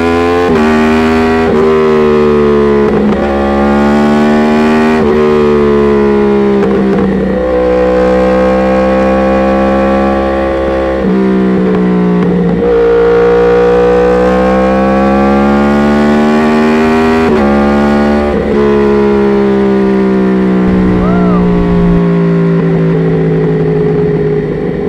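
Yamaha R1 inline-four through an Akrapovic exhaust, riding under load. The engine note climbs in pitch and drops back several times, then settles into a steady, slowly falling drone near the end.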